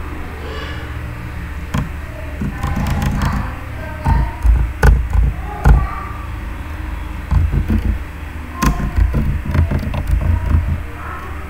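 Scattered sharp clicks from computer keyboard and mouse use, over repeated low rumbling thumps.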